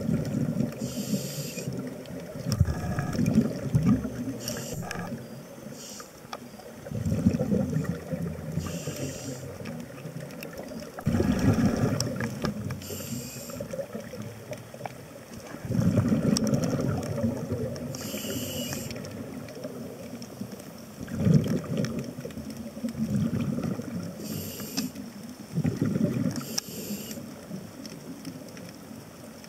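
Scuba diver breathing through a regulator underwater: a bubbling rumble with each exhale, about every four to five seconds, alternating with a short hiss of each inhale.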